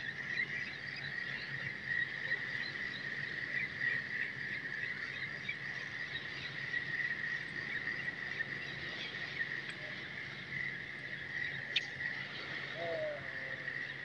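A steady, dense chorus of small calling animals, holding one high pitch with many quick flickering notes, with a single click and a short wavering call near the end.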